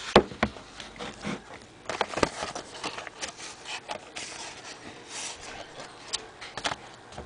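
Paper and cardboard rustling, rubbing and scraping as a mailed CD package is handled and opened, with scattered clicks. A sharp knock just after the start as the camera is set down on a wooden desk.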